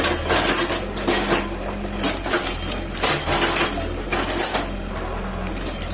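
Excavator diesel engine running steadily, with irregular louder bursts of noise about once a second as the machine works.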